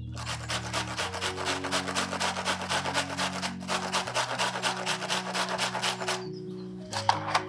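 A red onion being grated on a stainless-steel hand grater: quick rasping strokes, about five a second, that stop near the end.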